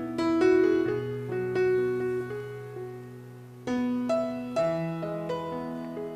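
Background piano music: a slow melody of single notes over held low notes, with a louder chord struck a little past the middle.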